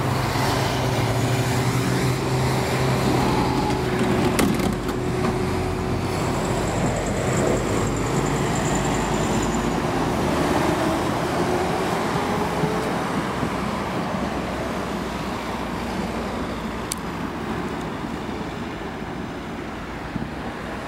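A truck's diesel engine running close by, then a two-car Konstal 13N tram rolling past on its rails with a motor whine that rises a little in pitch, growing fainter as the tram moves away down the track.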